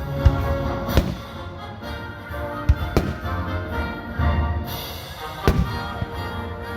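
Fireworks shells bursting in several sharp bangs over music playing with the show.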